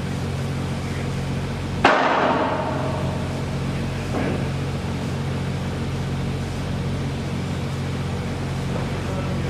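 Steady machine hum on a construction site, with a sharp hammer-like strike about two seconds in that rings and fades over about half a second, and a softer knock about four seconds in.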